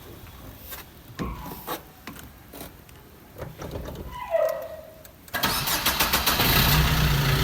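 A few light clicks and knocks, then about five seconds in a car's starter cranks briefly and the cold engine catches and settles into a steady idle. The car had been cranking without starting.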